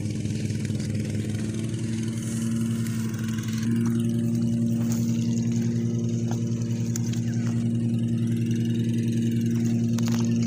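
A small engine running steadily at a constant speed, its hum growing louder about four seconds in.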